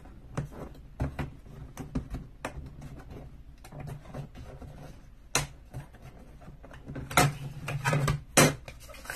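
Scattered clicks and knocks of a picture frame being taken apart on a tabletop: the retaining tabs on the back being bent up and the cardboard backing handled and lifted out. A denser run of louder knocks comes near the end.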